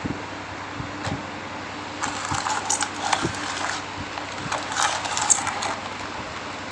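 Electric box fan running with a steady motor hum and rushing air. A few light knocks sound over it, and there are two stretches of light jangling clatter, about two and about four and a half seconds in.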